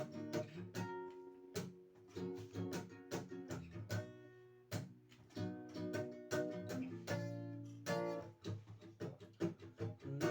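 Acoustic guitar playing the instrumental intro of a song, plucked and strummed chords ringing.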